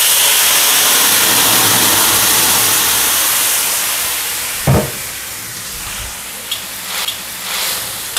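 Blended green-chilli spice paste hitting hot oil in an aluminium wok: a loud sizzle that starts at once and slowly dies down. There is a brief low thump about halfway through, and light clicks of a spatula on the wok near the end.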